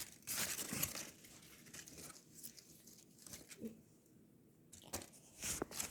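Faint, irregular rustling and crinkling of packaging handled by hand, with a few sharp crackles near the start and near the end.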